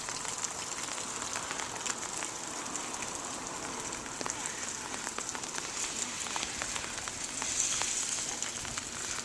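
Steady rain falling, an even hiss with many small sharp drop ticks, growing a little louder about three-quarters of the way through.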